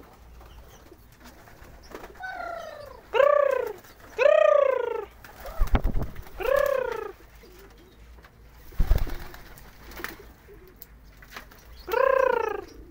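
Domestic pigeons cooing: about five separate arched coos that rise and fall in pitch, the loudest pair close together in the first half and another near the end. Two dull thumps come in between.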